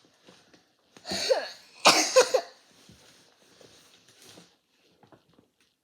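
A girl coughing, two loud coughing bursts about a second apart, the second broken into a few quick pulses.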